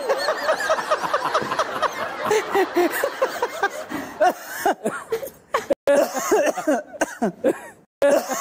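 A person laughing hard in a fast run of high voiced bursts, which thins out after about four seconds into sparser, broken sounds.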